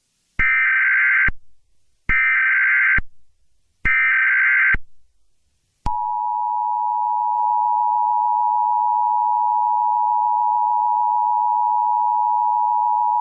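Emergency Alert System signal: three short bursts of digital SAME header data tones, then about six seconds in the steady two-tone EAS attention signal begins and holds.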